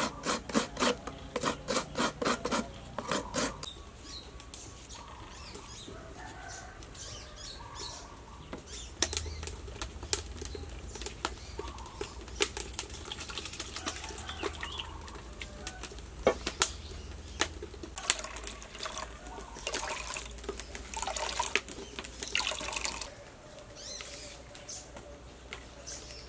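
Hands working grated coconut in a steel bowl: a quick run of rustling, squishing strokes. Then scattered single clinks of metal bowls and splashing water as the bowls are washed.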